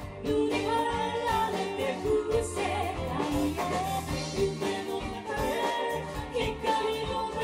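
A woman singing with a band of electric guitar, electric bass and drums, with a steady beat under the vocal melody.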